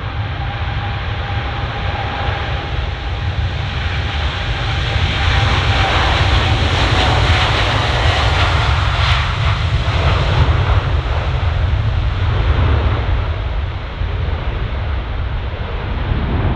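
Boeing 787-9 airliner's jet engines at takeoff power during the takeoff roll: a deep rumble with a steady whine, swelling to its loudest as the aircraft passes midway and easing near the end as it moves away.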